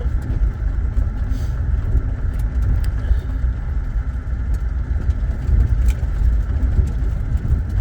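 Steady low road rumble and engine noise inside the cabin of a moving 2008 Saturn Vue.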